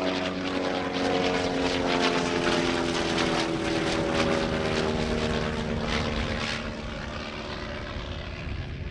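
Sopwith Triplane's rotary engine running in flight as the aircraft passes by, its note sinking slowly in pitch and fading near the end.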